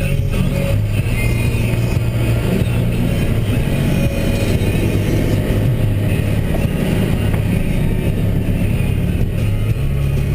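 2012 Mack Granite plow truck's diesel engine running under way, heard from the windshield-mounted camera inside the cab, with a steady low drone that shifts a little as the revs change.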